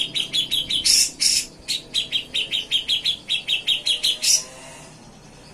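Cucak jenggot (grey-cheeked bulbul) singing a fast run of short chattering, trilling notes, about six a second, broken by a few louder, harsher notes. The song stops about a second before the end.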